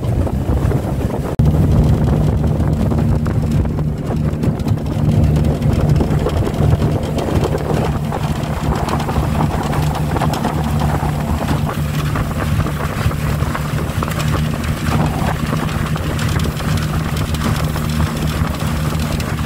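Outboard motor of a small metal boat running steadily under way, a constant low hum, with wind buffeting the microphone.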